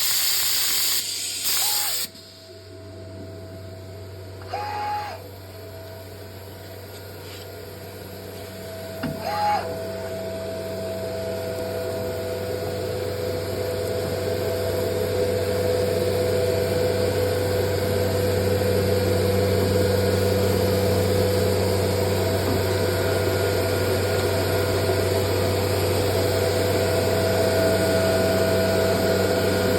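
Biesse CNC machine running: a loud hiss cuts off suddenly about two seconds in, two short blips follow, and a steady machine hum with whining tones slowly grows louder.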